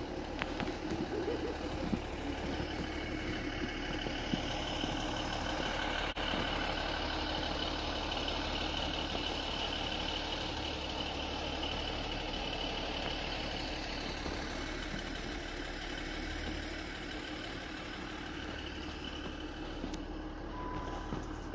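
ScotRail Class 156 Sprinter diesel multiple unit idling at the platform: a steady engine drone with a thin high whine over it.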